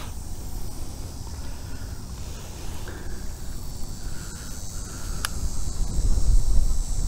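Wind buffeting the microphone, a low rumble that grows stronger about two-thirds of the way through, over a steady high drone of insects.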